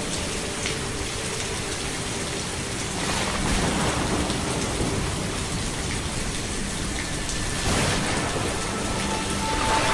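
Steady rain falling, a dense even hiss of drops that swells louder twice, about three seconds in and again near eight seconds.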